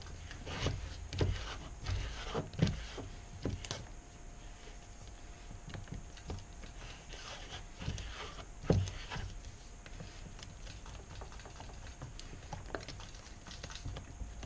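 A stir stick scraping and tapping against the bottom and sides of a plastic mixing cup as pigmented casting resin is stirred. Irregular light scrapes and knocks, with several louder ones in the first few seconds and one near the middle.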